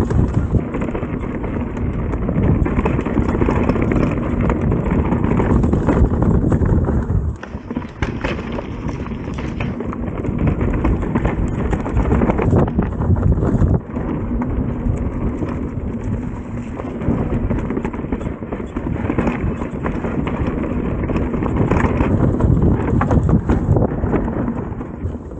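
Mountain bike, ridden without a chain, descending rough rocky singletrack: tyres rumbling and the bike rattling with many sharp knocks. The noise eases briefly twice, about seven and fourteen seconds in.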